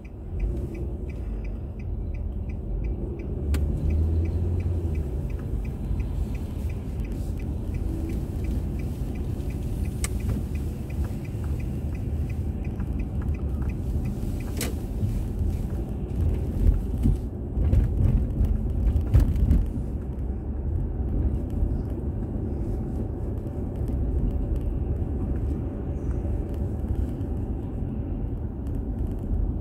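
A car driving, picked up by a dashboard camera inside the cabin: a steady low road and tyre rumble. A faint regular ticking runs through the first half, and a few louder low thumps come about two-thirds of the way in.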